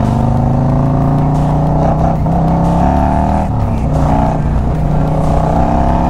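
Harley-Davidson bagger's V-twin engine under way, its pitch climbing as it pulls and dropping back three times as it shifts up through the gears.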